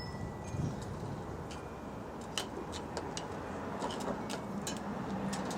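Scattered light clicks and ticks, irregularly spaced, from doorbell wiring and small doorbell hardware being handled.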